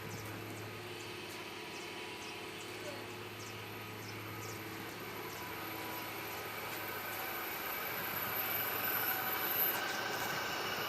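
A machine running steadily: a low hum with several higher whining tones, growing a little louder over the last few seconds.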